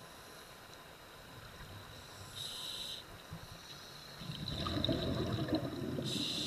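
Scuba diver breathing through a regulator underwater: a short inhalation hiss about two and a half seconds in, then a longer, louder burble of exhaled bubbles from about four seconds, and another inhalation hiss near the end.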